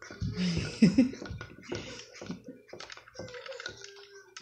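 Metal spoon clicking and scraping against a ceramic bowl, stirring food colouring into glue. A brief wordless vocal sound is the loudest thing about a second in.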